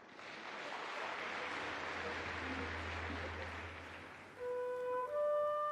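A soft rushing swell rises and fades, then a flute begins a melody of clear held notes about four seconds in, part of a symphony orchestra's performance.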